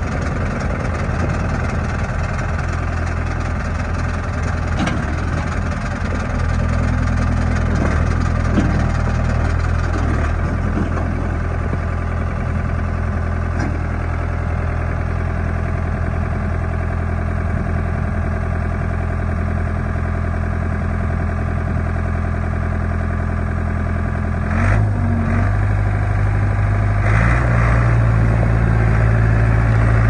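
Ford 555D loader backhoe's four-cylinder diesel engine running steadily as the machine is worked. Its speed steps up about six seconds in and again near the end, with a few light knocks in between.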